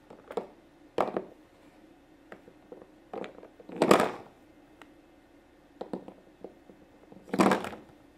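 Small plastic toy figures knocked and shuffled on a hard tabletop: about six short knocks and scrapes, the loudest about a second in, midway and near the end.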